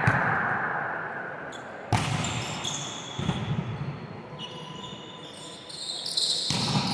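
Volleyballs being struck and bouncing in an echoing gym: a few sharp hits, the loudest about two seconds in.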